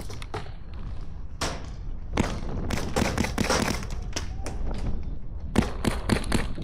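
An irregular string of sharp knocks and pops, bunched most closely about three seconds in, over a steady low rumble of wind buffeting the microphone.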